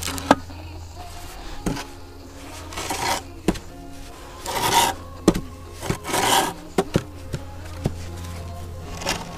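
Wooden screed board with a spirit level on it dragged through sand bedding in several rasping swishes, levelling the sand under a lean-concrete base, with a number of sharp knocks as the board strikes the concrete foundation edge.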